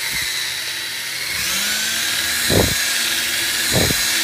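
Cordless drill running, its bit boring out the head of a brass snap set in a vinyl convertible boot to remove a snap put in wrong. The whine rises and brightens about a second and a half in, with two short low thuds later on.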